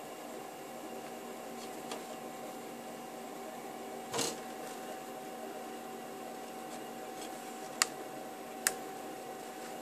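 CNC mill running a 500 mW laser micro cut: a steady machine hum with a few fixed tones. A short rasp comes about four seconds in, and two sharp clicks come near the end.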